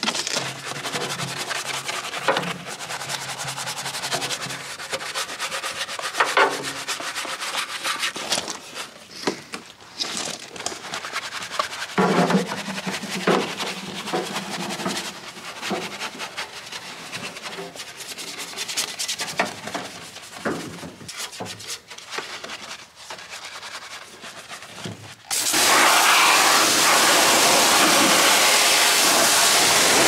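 Scrubbing of the soapy body of a 1966 Austin Mini Moke by hand, a run of uneven rubbing and brushing strokes. Near the end a pressure washer starts spraying the car with a loud, steady hiss.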